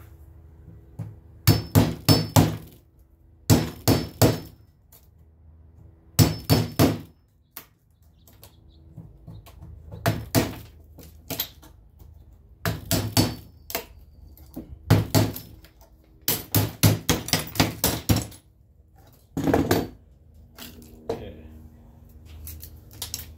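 Short groups of quick, sharp taps, three to five at a time, from a metal hand tool knocking old glazing, paint and broken glass out of a wooden door's pane opening. The groups come every couple of seconds.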